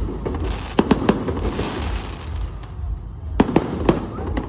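Aerial fireworks going off. Sharp bangs come in two quick clusters, one about a second in and another a little past three seconds, with crackling between them over a constant low rumble.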